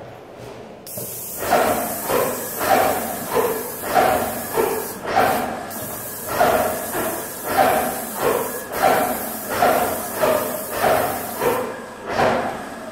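Airless paint sprayer spraying water-based paint through a fine-finish 310 tip: a steady high hiss from the gun begins about a second in. Beneath it the pump knocks regularly, about one and a half to two strokes a second. The hiss breaks off briefly a couple of times around the middle.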